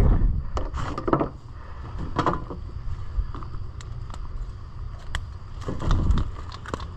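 Scattered clicks and knocks of a Boga Grip lip gripper and pliers being handled to unhook a speckled trout (spotted seatrout) lying in a landing net on wooden boards. Near the end there is a low grunting burst from the fish, a male.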